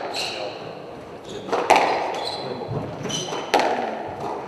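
Squash rally: the ball cracks off rackets and the court walls in three sharp hits about two seconds apart, with shoes squeaking briefly on the wooden floor between them.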